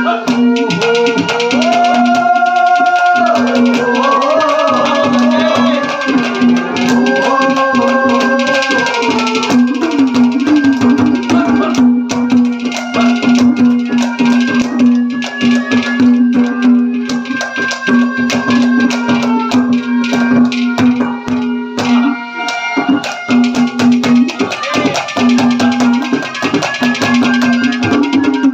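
Instrumental interlude of Haryanvi ragni folk music: a melody line with held and bending notes over a steady drone note, driven by fast hand-drum strokes and rattling percussion.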